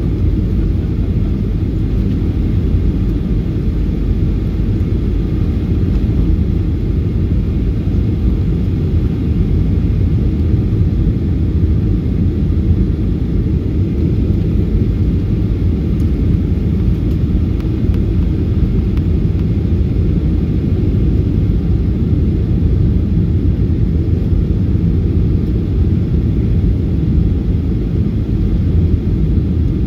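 Boeing 737-800 cabin noise during descent: a steady low rumble of the CFM56-7B engines and airflow, heard inside the cabin.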